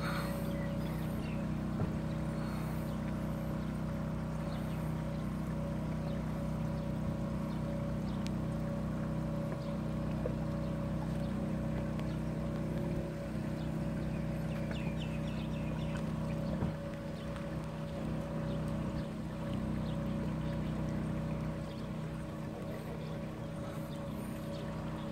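Steady low mechanical hum of a running motor, holding several even pitches without change.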